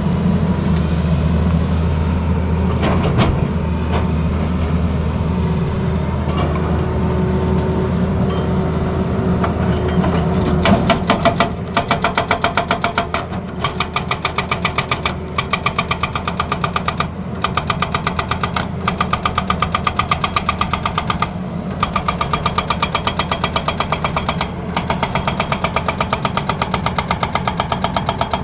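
Tata Hitachi Zaxis excavator's diesel engine running steadily. About eleven seconds in, its hydraulic breaker starts hammering in rapid, even blows, about ten a second, pausing briefly a few times.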